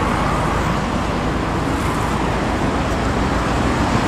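Steady road traffic noise: motor vehicles driving along a busy road close by.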